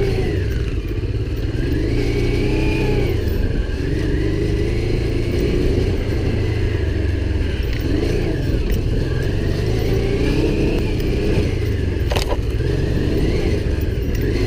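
Motorcycle engine heard from the bike itself on a dirt trail, its pitch rising and falling again and again as the throttle is opened and closed. A single sharp knock about twelve seconds in.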